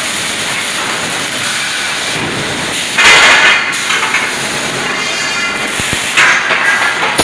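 Ringlock scaffolding automatic welding machine running: a steady machine noise with two louder hissing bursts, one about three seconds in lasting under a second and another shorter one around six seconds.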